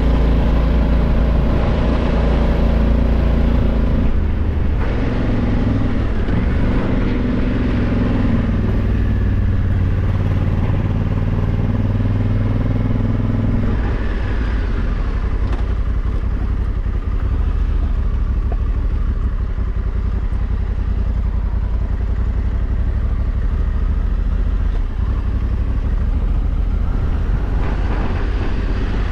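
Honda CRF1100L Africa Twin's parallel-twin engine running under way on the ride. About fourteen seconds in, the engine note drops and eases off as the bike slows down.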